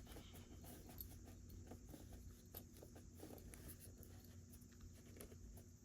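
Near silence, with faint scattered small clicks and rustles of hands handling a plastic object.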